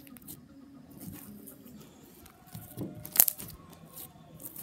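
Purple slime being pressed and squished by hand on a wooden table, giving small wet crackles and pops, with one sharper pop about three seconds in.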